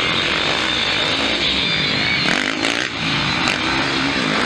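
Motocross bike engines revving hard, their pitch rising and falling as the throttle is worked over jumps and through corners.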